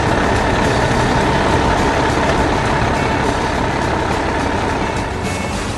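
Excavator engine running steadily under load: a heavy rumble with a thin steady whine above it.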